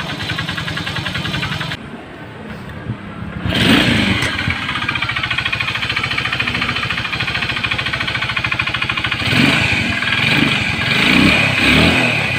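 Skygo Hero 125 motorcycle engine running and being revved, with a clanking from inside the engine. This is the sign of a worn crankshaft pin that calls for an engine overhaul. The engine drops lower about two seconds in, is revved up about a second and a half later, and rises again near the end.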